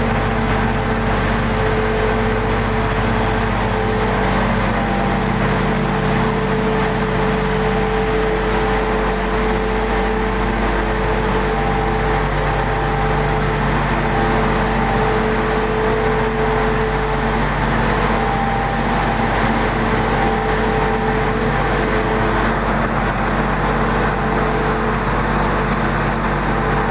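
Automatic atta chakki flour mill plant running: the mills and their conveying machinery make a steady, unbroken drone with a constant whine over a low hum.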